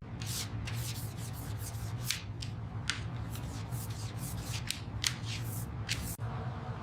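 Quick, irregular scraping strokes, a few each second, over a steady low hum.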